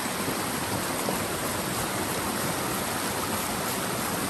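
Shallow rocky river rushing steadily over stones, an even, unbroken sound of running water.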